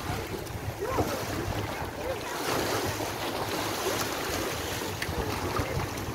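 Choppy sea waves washing and splashing against a rocky shore, with wind buffeting the microphone in a steady low rumble. Faint voices come through now and then.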